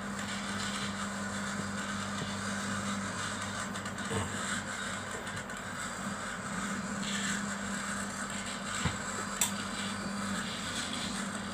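Steady low hum under an even hiss of room noise. The hum drops out for a few seconds and comes back, and a few faint clicks and knocks come late on.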